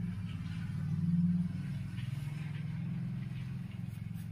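Low, steady engine-like rumble, swelling a little about a second in, with a few faint clicks near the end.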